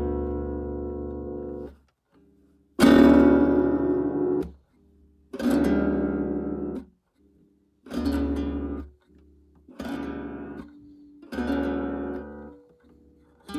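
Acoustic guitar strummed clumsily: single chords struck one at a time, each ringing for a second or two and then cut short, about six times.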